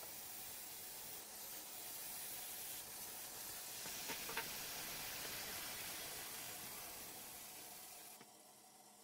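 Water hissing through a partly opened inlet valve as it fills the newly installed whole-house filter plumbing and sediment pre-filter housing. A couple of faint clicks come about four seconds in, and the hiss falls away sharply near the end.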